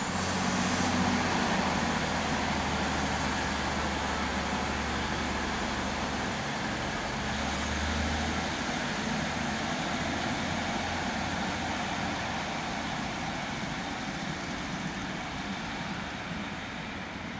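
Class 150 Sprinter diesel multiple unit pulling away under power. Its underfloor diesel engines give a low rumble that fades after about eight seconds as the train draws off, with a thin high whine rising slowly in pitch over the top.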